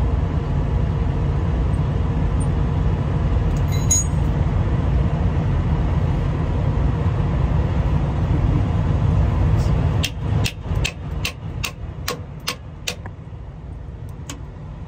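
A steady low rumble that drops away about ten seconds in. Then a ratchet wrench clicks evenly, about two or three times a second, for about three seconds, working a nut on a truck's air brake chamber.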